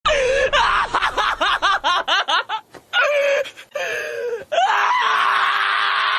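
A cat yowling: a run of quick wavering cries, then one long held yowl starting a little past the middle.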